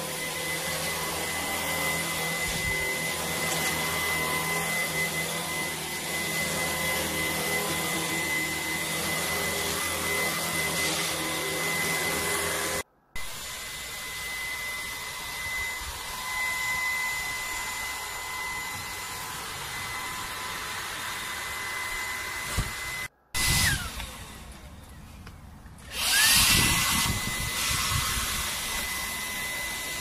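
Dibea X10 Plus cordless stick vacuum running with a steady high motor whine over the rush of suction through a small attachment head. A little over three-quarters of the way in, the motor winds down and is off for about two seconds, then spins back up to full speed.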